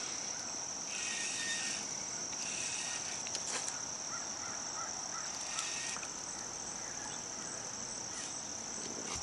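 Steady, high-pitched chorus of insects in the pond-side vegetation, unbroken throughout.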